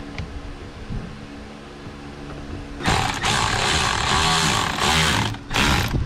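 Cordless power screwdriver driving a screw into the steering column trim. It runs for about two and a half seconds starting about three seconds in, then a short second burst near the end.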